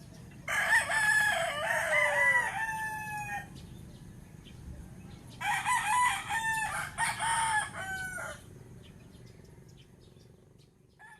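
A rooster crowing twice, each crow lasting about three seconds.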